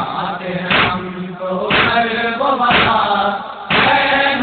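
Noha lament chanted by a group of male mourners, with matam: many hands striking chests together in a steady beat about once a second, between the drawn-out sung lines.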